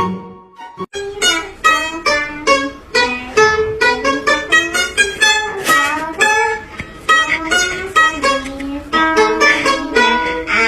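Background music: a plucked string instrument playing a quick melody of separate notes, starting about a second in.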